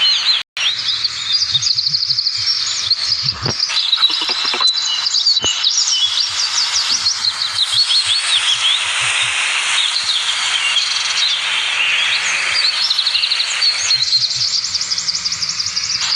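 Birds chirping and singing continuously, many quick repeated high notes. A rubbing, rustling noise joins them through the middle.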